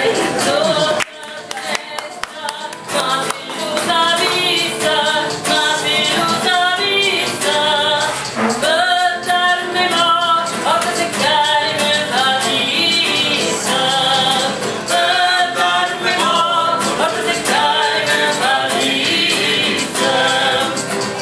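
A solo voice singing a popular song with acoustic guitar accompaniment, the held notes wavering with vibrato.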